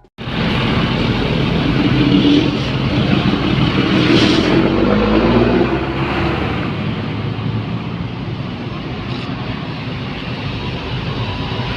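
Road traffic passing, with engine noise. It is louder for the first few seconds and then eases a little.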